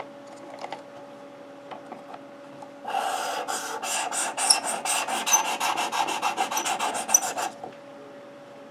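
The 600-grit stone of a Work Sharp guided sharpener is stroked back and forth along a Leatherman Free T4's knife edge: a quick run of rasping strokes, about four or five a second. The strokes start about three seconds in and stop about a second before the end. This is the honing stage on a 17-degree edge, after a burr has been raised.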